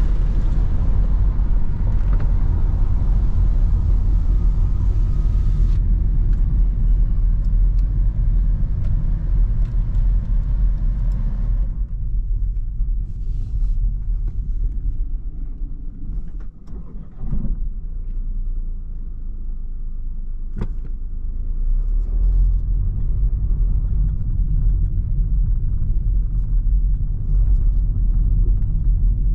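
Cabin noise of a BMW 2 Series Active Tourer with a 1.5-litre petrol engine driving: a steady low rumble of engine and tyres that quietens for a few seconds midway, with a couple of short knocks, then rises again.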